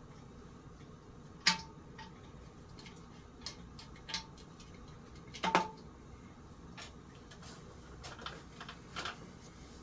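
Irregular clicks and metallic clinks of small metal parts and tools being handled while a ceiling fan is taken apart, two of them louder, about a second and a half in and again about four seconds later, some leaving a brief ring.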